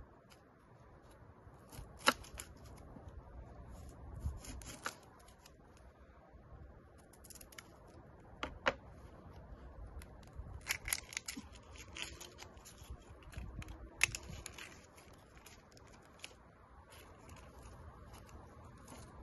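Kitchen knife clicking and cutting against a wooden cutting board, with the dry, crackly rustle of onion skin being peeled by hand. A few sharp knife clicks stand out over the quiet rustling.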